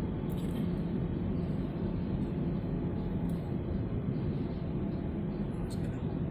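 Steady engine and road noise of a moving vehicle: a low, even rumble with a faint hum.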